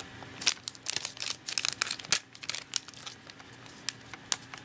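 Foil booster-pack wrappers and trading cards being handled, making irregular crinkles and sharp little clicks.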